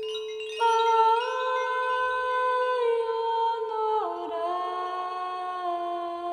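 Wordless sung or hummed vocal drone in held notes: one steady tone, joined by a louder, slightly higher note about half a second in that glides up a little, then the voices slide down to lower notes about four seconds in.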